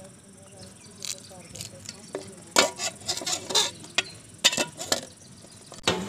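Knife and fingers tapping and scraping on an aluminium tray as green chillies are cut and gathered: a run of sharp clicks and taps, busiest from about halfway through.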